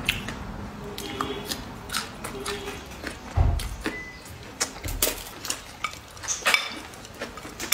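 Close-up eating sounds: wet chewing and mouth clicks, with wooden chopsticks clicking against a ceramic rice bowl in irregular sharp ticks and a couple of dull knocks.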